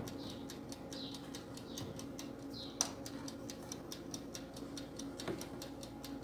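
Clockwork timer of a Princess countertop electric oven ticking rapidly and evenly, about six ticks a second, as the oven bakes, with a steady low hum from the running oven. A sharp click comes about three seconds in.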